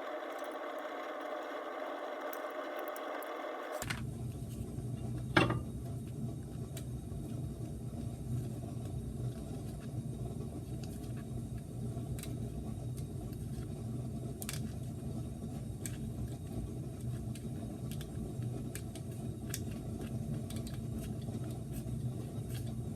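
A flathead screwdriver is prying thin sheet-metal retaining clips off a car's wheel studs, giving scattered light metallic clicks and one sharp click about five seconds in, over a steady low hum. A pitched whirring runs for the first four seconds.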